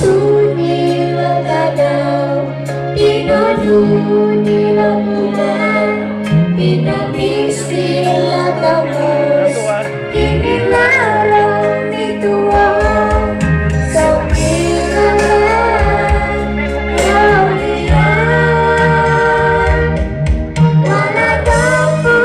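A girl singing a slow song into a handheld microphone, amplified over backing music with sustained bass notes.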